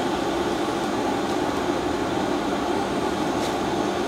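Steady, even whirring hum of a fan-type machine running, unchanged throughout.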